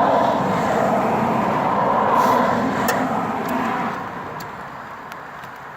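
A vehicle passing: a loud rushing noise that fades away over the last couple of seconds.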